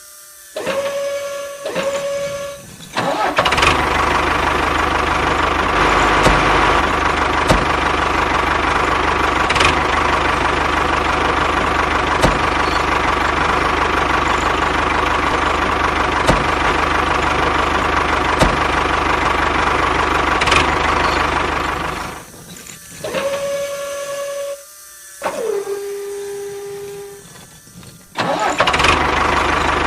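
A small motor runs steadily with a constant whine. Near the start, and again for several seconds near the end, it gives way to brief steady tones, one of which slides down in pitch.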